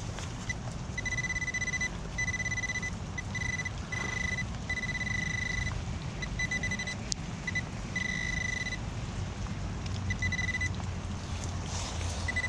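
Handheld metal-detecting pinpointer beeping on and off in a steady high-pitched tone, in stretches from short chirps to about a second long, as it is swept over a metal target in the hole. Under it runs a steady low background rumble.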